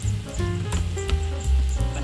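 Background music with a heavy bass line and short melody notes.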